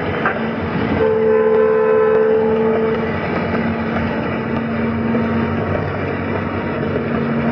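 Train running along the track, heard from the driver's cab: a steady rumble and hum, with a tone held for about two seconds starting about a second in.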